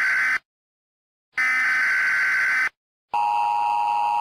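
Electronic buzzer tones: a higher-pitched buzz that ends just after the start, a second identical buzz of about a second and a half, then a lower, steadier beep tone that holds to the end. Each tone starts and stops abruptly with silence between.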